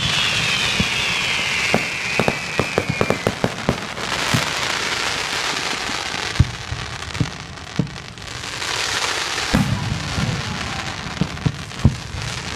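Consumer fireworks going off: a falling whistle of several tones at the start, then a quick string of sharp pops and stretches of crackling hiss, with single bangs scattered through the rest.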